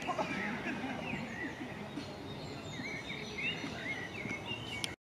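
Several songbirds chirping and singing over a steady outdoor background hush. The sound cuts off abruptly near the end.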